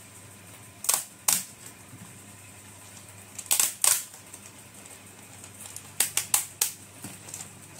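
Sharp plastic clicks and snaps as the old keyboard is pulled away from an ASUS X200CA laptop palmrest, coming loose from the melted plastic pegs that hold it. There are two snaps about a second in, two more near the middle, and a quick run of four about six seconds in.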